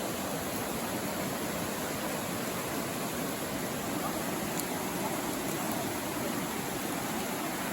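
Mountain stream rushing over rocks: a steady, even water noise.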